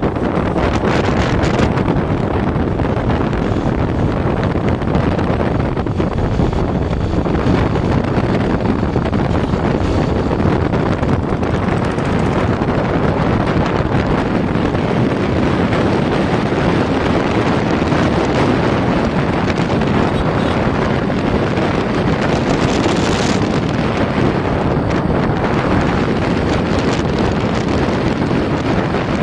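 Steady wind rush buffeting the microphone of a motorcycle rider moving at speed, with the bike's running and road noise underneath.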